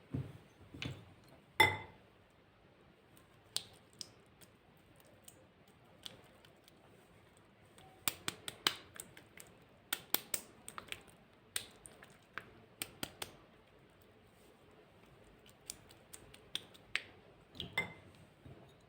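Glossy slime being pressed and stretched by hand, making irregular sharp clicks and small pops that come thickest in the middle.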